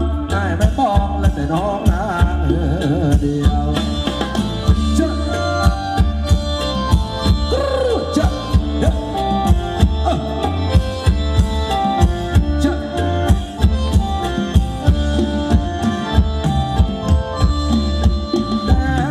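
Thai ramwong dance music from a live band, played loud through large PA speakers: a steady, evenly repeating drum beat under sustained melody lines.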